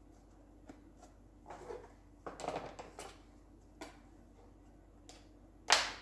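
An empty plastic PET bottle handled on a plastic cutting board: scattered light clicks and soft crinkling of the thin plastic, with one louder sharp crackle near the end.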